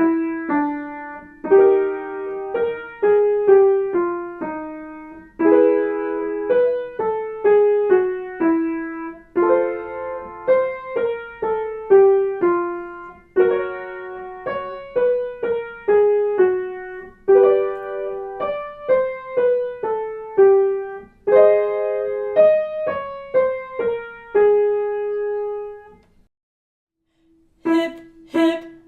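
Piano accompaniment for a singing warmup exercise, with no voice: a short falling run of notes played again and again, each repeat a little higher. It ends on a held note and a short pause before the next exercise starts.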